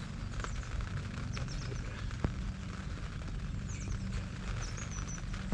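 Small birds chirping briefly several times over a steady low rumble, with a single sharp click about two seconds in.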